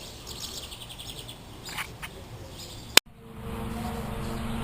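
Small birds chirping in a quick repeated trill over faint outdoor background noise. About three seconds in, a sharp click cuts it off, and a steady low hum with a few fixed tones follows.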